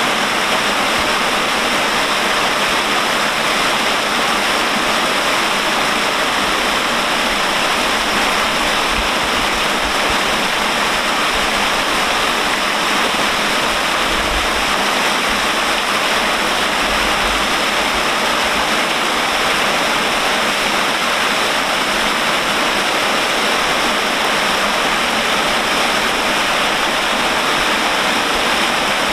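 Water falling like a waterfall in a thin curtain from an aqueduct bridge's trough and splashing onto the river surface below: a loud, steady, even rush of falling water.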